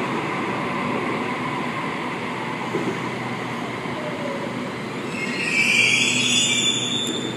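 Waratah electric train moving through the station with a steady rumble; about five seconds in, its wheels squeal for roughly two seconds before fading.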